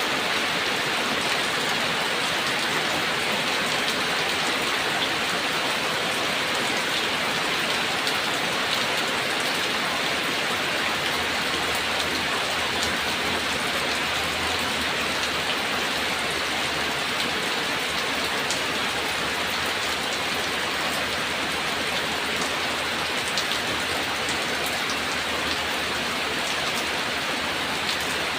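Steady rain falling, an even hiss with scattered fine drop ticks.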